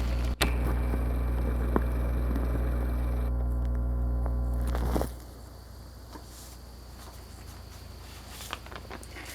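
Electric fan running with a steady low mains hum and air rush, which stops abruptly about five seconds in. After that only faint room noise with a few light clicks remains.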